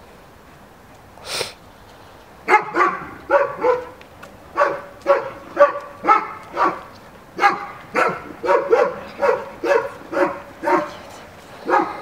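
A dog barking over and over, about two barks a second, starting a couple of seconds in.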